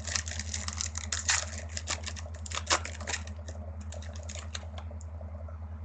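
Sports-card foil pack being torn open and its cards handled: a quick run of crackling, clicking rustles that thins out after about three seconds and stops near the end, over a steady low hum.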